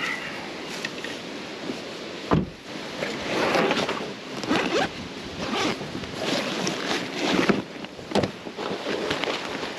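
Rustling and scraping of a nylon gear bag and waders being handled on a pickup's plastic bed liner, with a sharp thump a little over two seconds in and another about eight seconds in.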